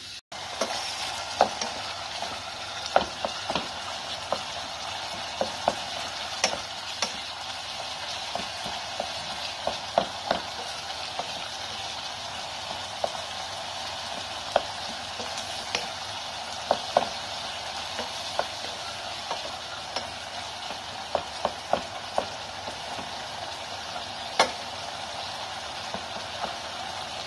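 Ground beef sizzling as it fries in a saucepan, stirred with a wooden spatula: a steady sizzle with frequent short, sharp clicks.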